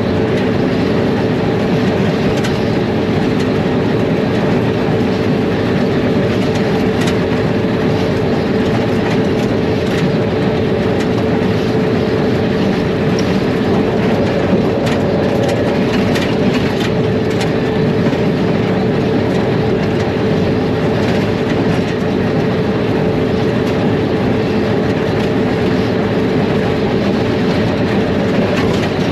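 ALCO diesel locomotive running under way, heard from inside its cab: a steady drone with a held hum, and scattered sharp clicks from the wheels on the track.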